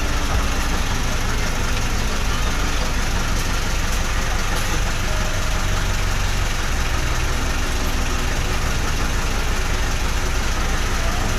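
Engine of a kempang, a small wooden passenger ferry boat, running steadily with a low, even rumble.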